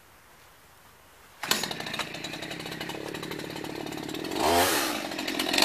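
Chainsaw starting up about a second and a half in and running with a rapid idle chatter, then revved up and back down once near the end.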